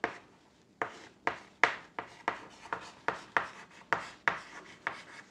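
Chalk writing on a chalkboard: a quick, uneven run of short taps and scrapes, about three a second, as a word is written out.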